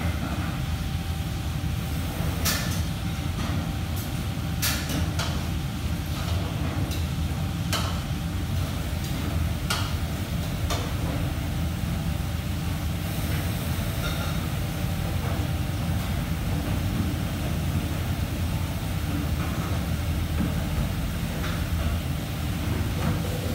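Commercial kitchen background: a steady low mechanical hum, with scattered sharp clinks and knocks of utensils and metal ware, most of them in the first half.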